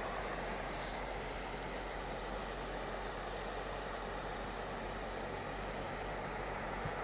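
River water rushing steadily, with a brief higher hiss about a second in.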